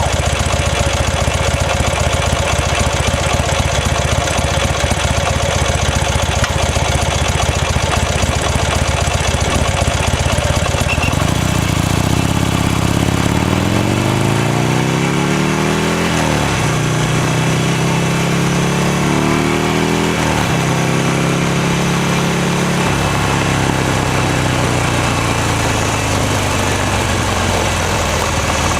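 Buell XB9S Lightning's 984 cc air-cooled V-twin idling steadily, then about eleven seconds in pulling away: the revs climb, drop at a gear change, climb again and drop at a second shift. It then holds at a steady, slowly easing pitch.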